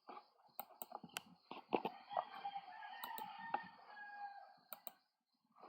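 A rooster crowing faintly, one long drawn-out call, over a few sharp computer mouse clicks.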